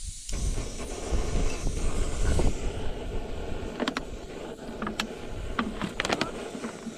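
Wind buffeting the microphone: a low, gusty rumble over a steady rushing noise, strongest in the first few seconds. Several sharp clicks and knocks come in the second half.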